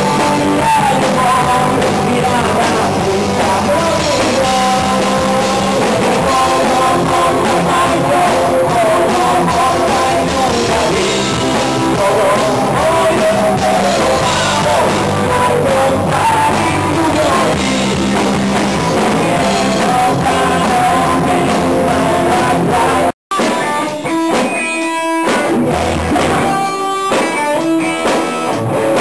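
Rock band playing: electric guitar and drums with a man singing into a microphone. The sound cuts out for an instant a little over 20 seconds in, then carries on in a choppier, stop-start rhythm.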